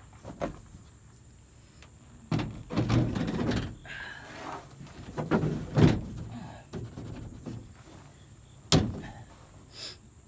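A wooden 2x4 knocking and scraping against the truck bed as it is worked into its slot, with a few thumps and one sharp knock near the end as it seats snugly.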